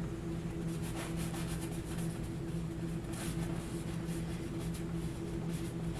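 Paintbrush rubbing acrylic paint onto a stretched canvas in short strokes, over a low steady hum.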